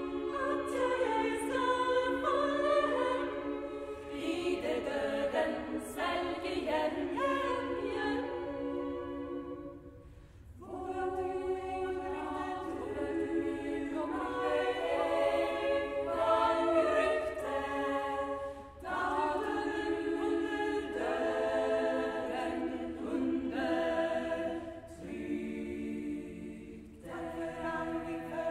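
Women's choir singing a Norwegian folk hymn a cappella in several parts, in held chords phrase by phrase, with a short break about ten seconds in.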